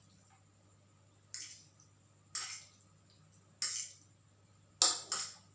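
A person eating fried noodles: five short, wet mouth sounds about a second apart, the last two close together near the end.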